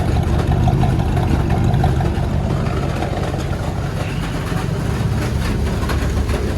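Car engine running steadily at low revs.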